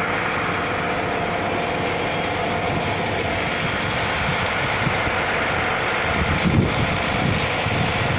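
Diesel engine of a Greyhound intercity coach running close by, a steady noise with a little low rumbling late on.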